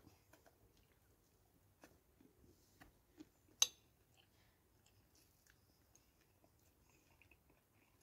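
Faint chewing of a mouthful of food, with a few small clicks and one sharper click about three and a half seconds in.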